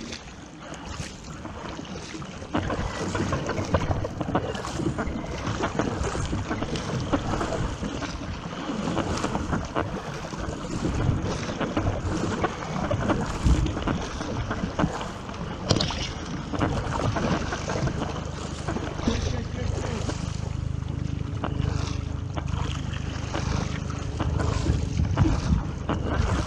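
Wind buffeting the microphone over the rush and splash of sea water around a surfski under way.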